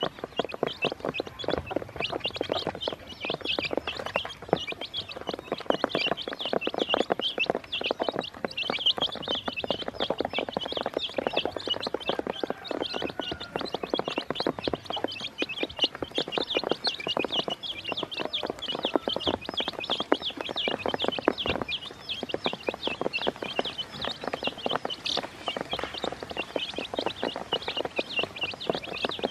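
A brood of baby chicks peeping continuously in many short high chirps, over a fast patter of beak taps as they peck feed off a plastic basin.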